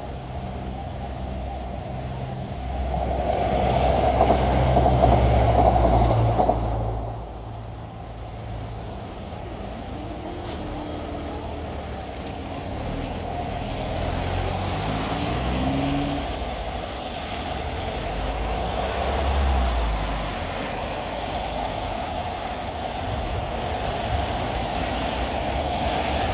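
Road traffic on wet tarmac: a loud vehicle pass-by from about three to seven seconds in that cuts off sharply, then cars and a van pulling away with rising engine note and tyre hiss as they drive over the level crossing.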